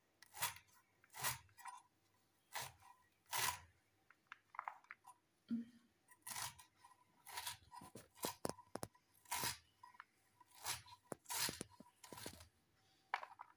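Bunched young bottle gourd leaves being sliced against the iron blade of a boti, a floor-mounted Bengali cutting knife: a run of short, crisp cutting strokes at about one or two a second, uneven in spacing.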